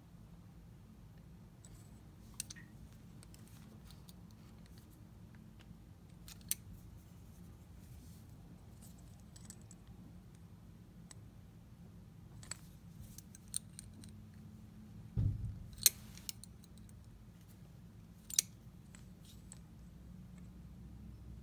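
Scattered sharp metallic clicks of steel orthodontic pliers gripping and bending the stainless-steel wire arms of a Rapid Palatal Expander on a plaster model, with a dull knock about 15 seconds in. A low steady hum runs underneath.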